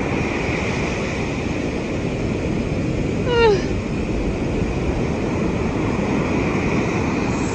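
Steady rush of heavy storm surf breaking and washing far up a sandy beach. About halfway through comes one short cry that falls in pitch.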